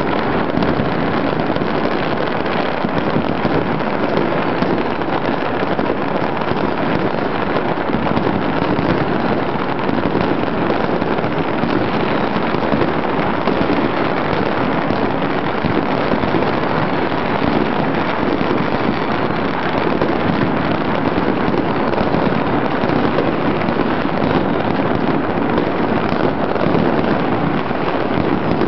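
Fireworks and firecrackers going off all across a city at once, their countless pops and crackles merging into one continuous, unbroken din with no single bang standing out.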